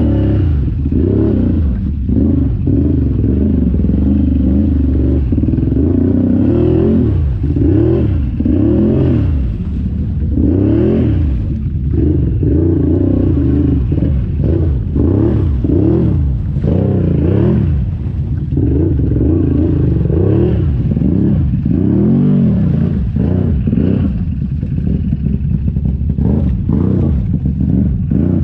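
Big-bore 2015 Can-Am Renegade ATV with an HMF exhaust, its V-twin engine revving up and dropping back again and again as it churns through mud and water.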